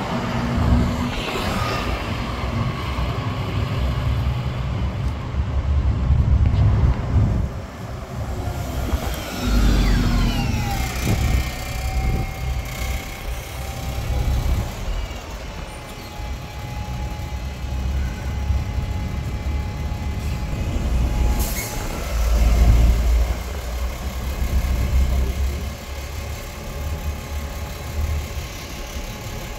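Buses and a lorry at a roadside bus stop: heavy diesel engines rumbling, with falling whines as vehicles slow, and a double-decker bus standing with its engine running. A short air-brake hiss comes about twenty seconds in, followed by a louder surge of engine rumble.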